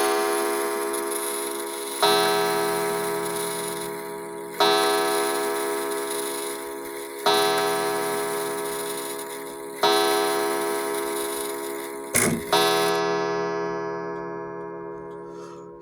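Howard Miller 31-day wall clock's mallet striking the hour on its gong, five ringing strikes about two and a half seconds apart, each fading slowly, with a short knock just before the last. The mallet mechanism has just been oiled to cure a slow strike, which the owner finds improves it quite a bit.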